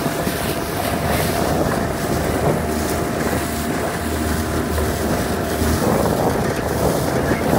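Outboard motor of a following launch running steadily under way, with wind on the microphone.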